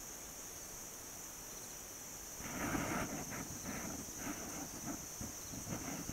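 Steady high-pitched insect chorus, crickets, from a grassy pasture. About two and a half seconds in, a run of short, irregular, louder lower-pitched sounds joins it.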